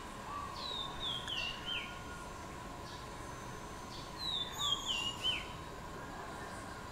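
A songbird whistling a run of four descending notes, twice, with about three seconds between the runs, over a faint steady tone and outdoor background hiss.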